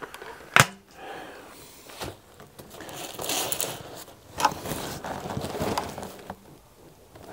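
A Weihrauch HW99S break-barrel air rifle's barrel snaps shut with a sharp clack about half a second in. Then comes rustling and knocking as the rifle is handled and laid onto a sandbag rest, with another single click near the middle.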